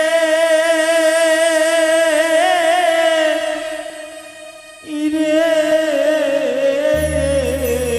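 A male jatra pala singer holding long, drawn-out sung notes with a wavering pitch. The first note fades away about halfway through and a second long note begins. A low, steady musical accompaniment comes in near the end.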